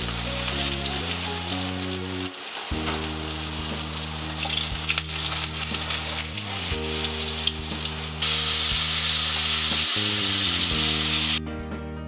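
Spice-marinated rohu fish steaks sizzling in hot oil in a wok, with a spatula scraping and clicking against the pan as the pieces are lifted out. The sizzle grows much louder about eight seconds in, then stops abruptly near the end.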